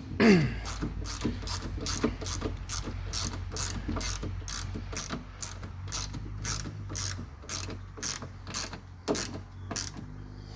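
Hand ratchet clicking steadily, about three clicks a second, while a screw in the car door is turned.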